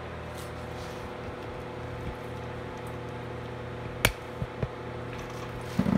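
Steady low mechanical hum in a small room, with one sharp click about four seconds in and a few lighter knocks just after it.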